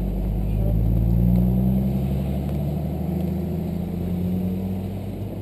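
A motor vehicle's engine running close by on the road, a steady low hum that swells about a second in and fades away near the end, as a car going slowly past.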